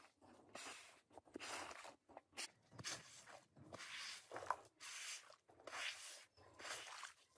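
Rubber floor squeegee pushed in short, repeated strokes across a soaked rug, swishing muddy, soapy wash water along ahead of its blade.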